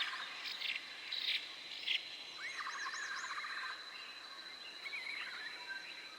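Forest ambience: an insect holds one steady high-pitched buzz throughout, while several small birds chirp, whistle and trill over it in short repeated phrases.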